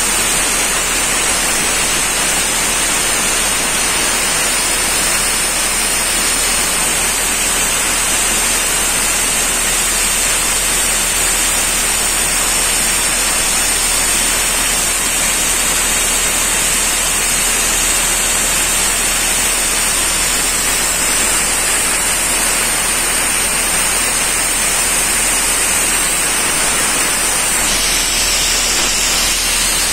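Compressed-air paint-spraying equipment running: an Airman portable air compressor driving a pneumatic paint pump. It makes a steady, loud hiss that does not let up.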